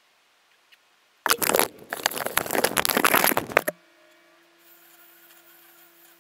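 Loud rustling, scraping and knocking of a hand gripping and moving the camera right against its microphone, lasting about two and a half seconds and stopping abruptly. A faint steady low hum follows.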